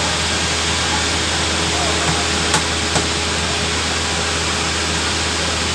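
Steady, loud machinery noise: an even rushing hiss over a low, constant hum. Two light knocks come close together near the middle.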